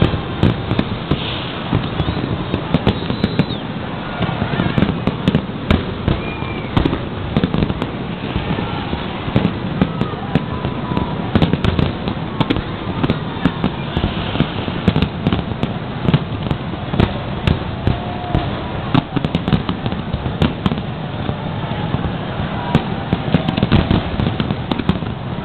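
Large aerial fireworks display: shells bursting in quick succession, many bangs a second with crackling between them, never letting up.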